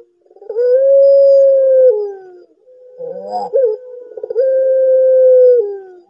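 Barbary dove of the puter pelung type giving its long, eerie-sounding coo: two drawn-out coos, each held on one pitch for over a second and sliding down at the end, with a shorter broken coo between them.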